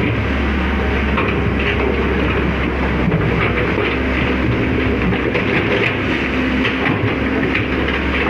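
Amphibious excavator's diesel engine running steadily under load, with scattered metallic clanks and clatter from the machine.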